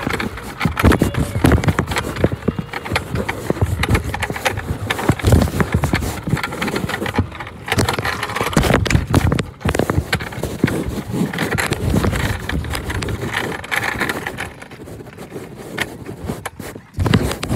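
Muffled rubbing, knocking and scraping of a covered phone microphone: close handling noise, loud and irregular throughout, with a quieter stretch near the end.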